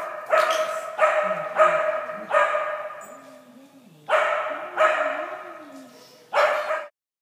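A dog barking repeatedly, seven barks in loose succession with a pause in the middle, each bark followed by a long echo. The sound cuts off suddenly just before the end.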